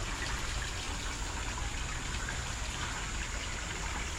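Water running steadily from an old water source that is still flowing, an even, continuous rush of water.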